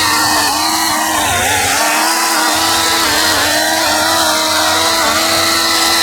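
Ryobi 40V battery chainsaw running at full speed and cutting into a log: a steady electric motor whine that dips briefly in pitch several times as the chain bites and loads up.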